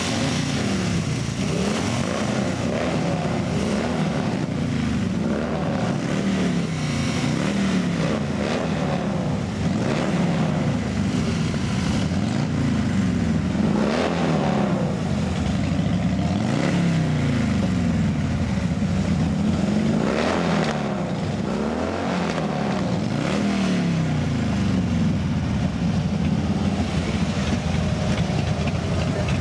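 A motor vehicle engine running, its pitch rising and falling again and again.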